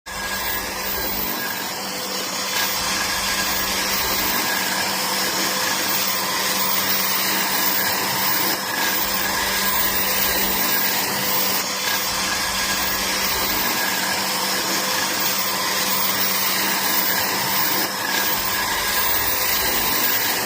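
An electric motor running steadily with an even, unbroken hum and hiss.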